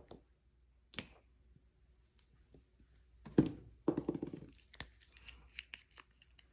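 Small clicks and knocks of nail-art tools being handled on a silicone mat: a sharp click as a clear stamper is set down, another about a second later, a louder knock-and-rattle a little over three seconds in, then light ticking as a nail polish bottle is picked up and opened.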